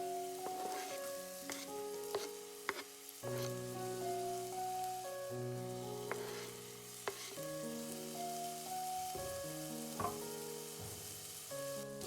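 Food frying in a pan with a steady sizzle, and a utensil clicking against the pan now and then while stirring. A simple, repeating background melody of plain sustained notes plays over it.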